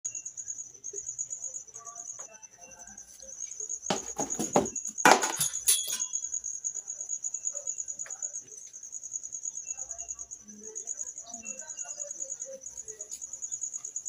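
A high trill with a fast, even pulse, like a cricket, goes on without a break. About four to six seconds in come a few loud knocks and rustling: the Arno table fan being handled and set down on the workbench.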